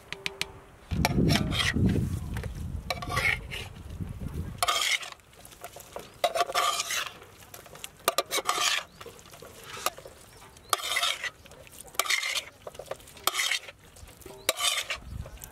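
Fried shark fish pieces being mixed with curd, onions, herbs and spices in a large metal pot: a series of mixing strokes, about one a second, with a low rumble in the first few seconds.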